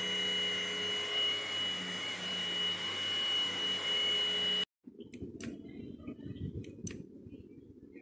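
Cordless stick vacuum running over a sofa: a steady motor noise with a high whine on top, which stops abruptly a little over four seconds in. After it comes a quieter low rumble with a few sharp clicks.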